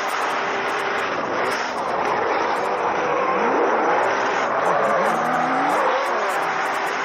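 Drift car engines revving up and down under a steady noisy rush of tyres sliding on tarmac, heard from a camera mounted on the outside of a drifting car.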